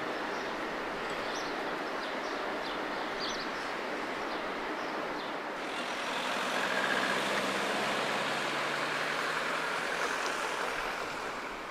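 Street traffic noise, with a tram moving off and birds chirping over the first half. The sound changes abruptly about halfway and grows louder as a vehicle passes, its low hum dropping slightly in pitch.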